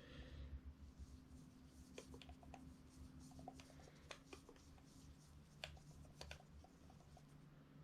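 Faint scattered clicks and light rubbing from a camera lens being handled, over a low steady hum.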